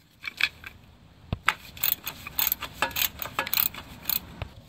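Quarter-inch drive ratchet clicking in short, irregular strokes with light metallic clinks, as the stabilizer bar bushing bracket bolts are run in and snugged up.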